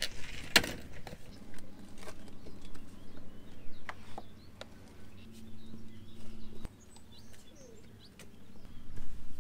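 Corrugated plastic drain tile being handled on dirt: scattered knocks and scrapes as it is dragged and laid in place, with one loud knock about half a second in. Birds chirp faintly.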